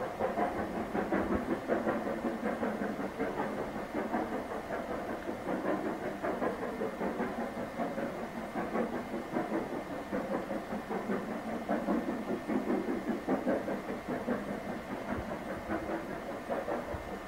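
Steam locomotive exhaust beating steadily as it works hard up a steep 1 in 49 gradient: a close, even run of chuffs with a hiss under it.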